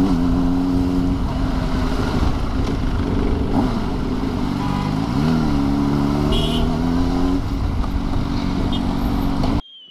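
Honda CBR600RR inline-four engine running at low revs in slow traffic, quiet through its exhaust with the catalytic converter still fitted, over wind noise, with a brief rise and fall in revs about halfway through. Near the end the engine sound cuts out and a falling whistle begins.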